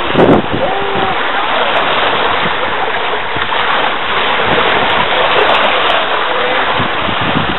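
Small waves washing onto the sand at the water's edge: a steady rush of surf.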